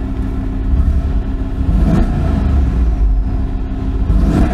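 Mercedes-AMG G63's 5.5-litre twin-turbo V8 being revved in a tunnel: a deep engine rumble that swells a few times.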